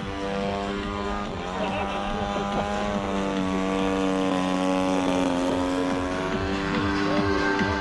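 Single-cylinder two-stroke gas engine (DA-60) of a large radio-control aerobatic plane buzzing overhead, its pitch shifting with throttle and manoeuvres: a change about a second in and a bend around five seconds.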